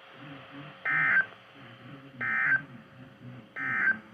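Emergency Alert System end-of-message data bursts on a weather radio broadcast: three short bursts of digital data tones about 1.4 seconds apart, signalling the end of the warning message.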